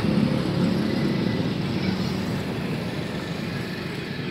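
Passenger train's coaches rolling along the rails below, a steady rumble of wheels on track that fades as the train moves away.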